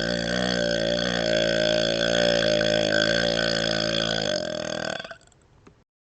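A man's long, low-pitched burp, held at a steady pitch for several seconds and dying away about five seconds in.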